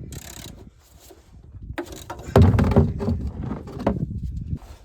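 Knocks and scraping of hand tools working at a truck's oil drain plug, with a heavier run of low thumps about two and a half seconds in.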